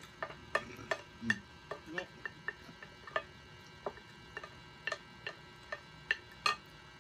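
Wooden spoons clicking and scraping against a ceramic plate while eating, in irregular small taps about two to four a second.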